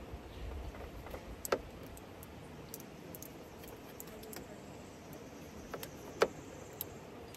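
Knife cutting the skin off a pineapple on a metal plate: scattered small clicks, with two sharper knocks about a second and a half in and again about six seconds in.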